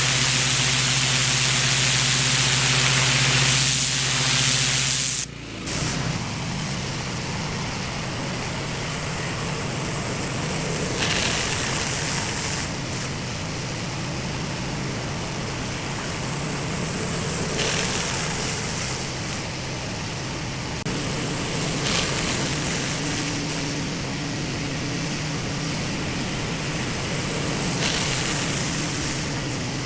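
Pressure washer running: a steady engine hum under the hiss of high-pressure water spraying onto a dirty concrete driveway. About five seconds in the sound cuts abruptly to a rougher engine drone, with the spray hiss surging every few seconds.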